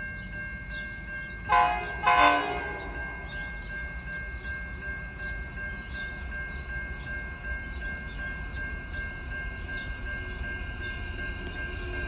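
Two short horn blasts from the approaching Pacific National NR-class diesel freight locomotive, about a second and a half in, over a steady low rumble of the train. A faint regular ticking and thin steady high tones run underneath.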